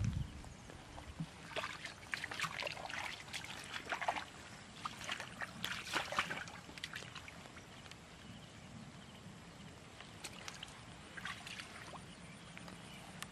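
Feet and hands wading and splashing through shallow muddy stream water in irregular bursts, busier in the first half and thinning out past the middle.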